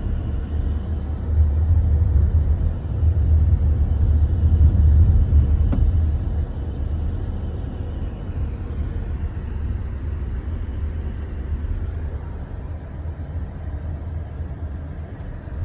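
Car driving along a road, heard from inside the cabin: a steady low rumble of engine and tyre noise that swells for a few seconds early on and eases off after about six seconds. One faint click about six seconds in.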